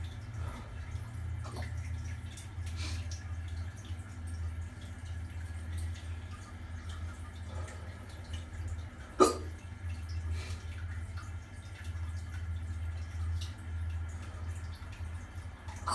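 A man hiccupping: one sharp, loud hiccup about nine seconds in, with a few fainter ones before and after it. A steady low hum runs underneath.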